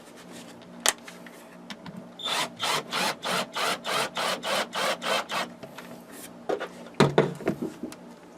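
Cordless drill used as a screwdriver, fastening the switch box lid: a run of rhythmic rasping clicks, about four a second for some three seconds, then a sharp knock near the end.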